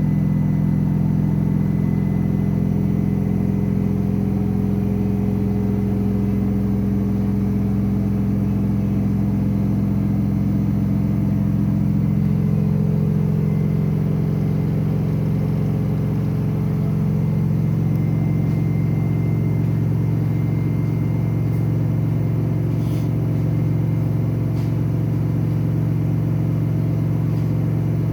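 Samsung washing machine drum spinning at high speed, a loud steady hum and rumble. The owner finds this spin noise louder than he expected and is unsure whether it is normal.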